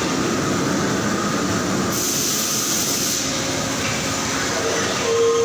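Steady machinery din on an engine-factory floor. A hiss joins it for about a second, two seconds in, and a short steady tone sounds near the end.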